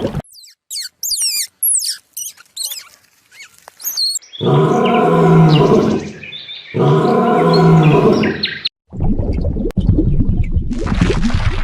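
Animal calls cut one after another: quick high chirps for a few seconds, then two long, low calls of about two seconds each, then a rough, low, rumbling stretch that stops abruptly near the end.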